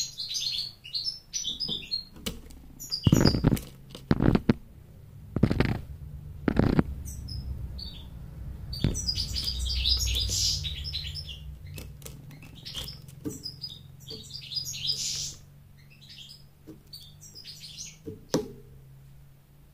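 A caged European goldfinch twittering in short, high chirps, with several dull thumps as it flutters close to the microphone. The chirping thins out to a few faint calls near the end.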